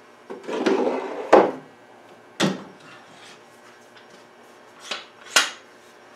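Metal bar clamps being loosened and taken off a chair after the epoxy has set: a rattling slide of the clamp jaws about half a second in, then four sharp metal clacks as the clamps come loose and are set down.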